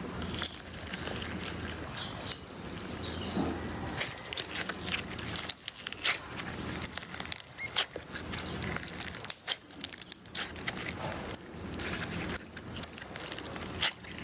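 Jelly cube slime being squeezed and pressed by hand, giving irregular crunching, crackling and squishing pops.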